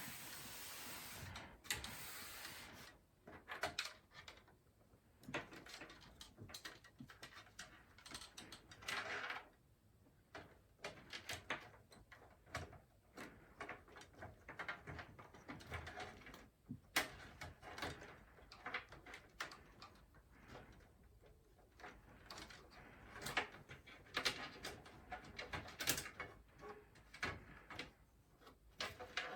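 Hands working on a PC case: scattered clicks, taps and light knocks of parts being handled and fitted, with longer rustling at the start and again about nine seconds in.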